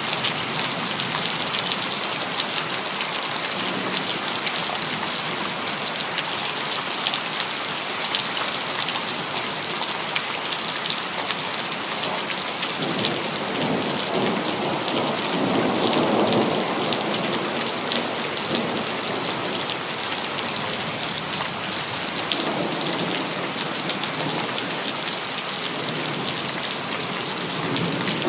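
Steady heavy rain falling, with a low rumble of thunder swelling about halfway through and again near the end.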